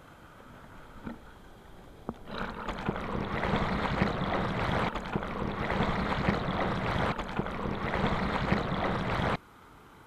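Water cascading over a curved weir and splashing straight onto an action camera pushed into the falling water: a few light ticks of drops at first, then about two seconds in a loud, dense rushing splash that cuts off suddenly near the end.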